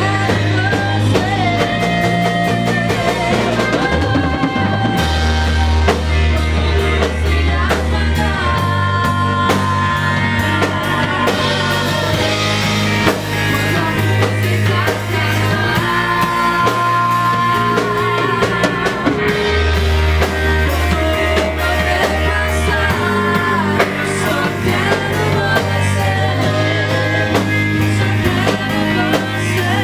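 Live worship band performing a song: a singer's voice with vibrato over drum kit, bass and electric guitar.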